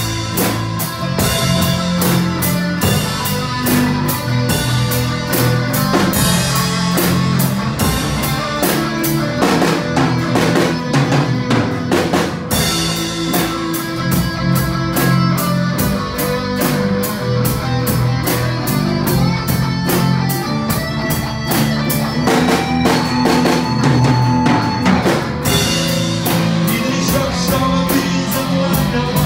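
Instrumental break of a slow rock ballad: a drum kit keeping a steady beat under bass and guitar playing the melody, with no singing.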